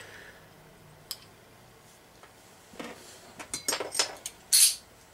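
A beer bottle and glassware being handled on a table: a single sharp click about a second in, then a run of clinks, knocks and rustles over the last two seconds.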